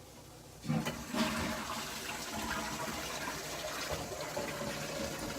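Rushing water that starts suddenly just under a second in and keeps running steadily.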